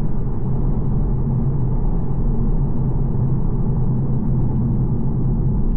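Audi TT 2.0 TFSI turbocharged four-cylinder engine pulling hard under load up a hill, a steady low rumble with road noise. This is a load test after a new ignition coil pack and spark plugs were fitted to cure a cylinder 1 misfire.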